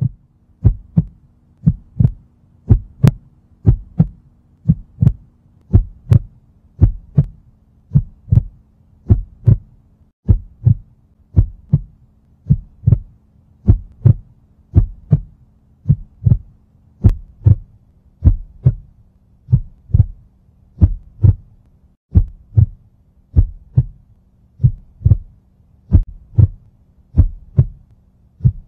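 Heartbeat sound effect: a steady lub-dub double thump about once a second, with a low steady hum underneath.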